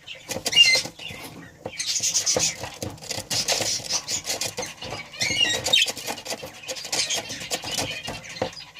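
Budgerigars chattering in rapid, scratchy bursts of high chirps, warbles and clicks, with short gaps between bursts.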